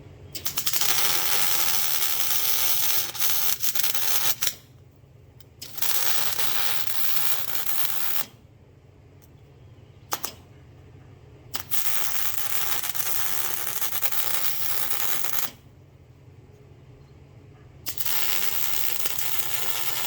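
Electric arc welding on a steel smoker frame: the arc hissing in four runs of two to four seconds each, starting and stopping abruptly, with a single short click in one of the pauses.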